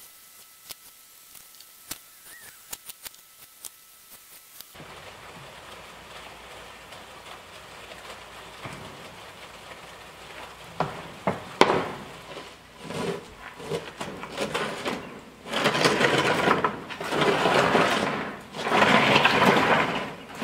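Handling of a wooden chicken-coop frame and its hinged lid: scattered sharp clicks and knocks. About fifteen seconds in, louder bursts of rushing noise take over.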